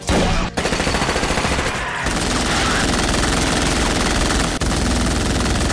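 Rapid, sustained automatic gunfire from a film shootout scene, a dense run of shots that barely lets up.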